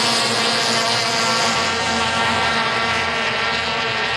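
Several two-stroke racing outboard motors running together at racing speed, a steady, dense buzz of many engine tones at once.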